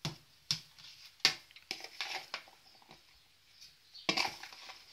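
A metal fork mashing crumbled salted cottage cheese in a ceramic bowl: scattered clinks and scrapes of metal on the bowl. About four seconds in there is a longer, louder scrape as the cheese is scraped out of the bowl.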